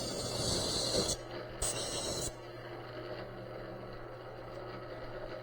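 Spray gun hissing in two short bursts as Cerakote ceramic coating is sprayed onto a knife blade, each burst cutting off sharply, over a steady low hum.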